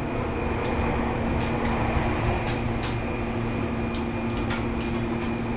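Seibu Kokubunji Line commuter train running, heard from inside the carriage: a steady rumble with a constant hum, and light clicks and clacks every so often.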